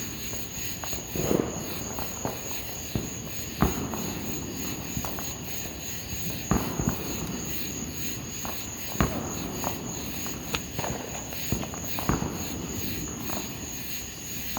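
Insects chirring in a steady high-pitched drone, with irregular sharp clicks and knocks scattered over it.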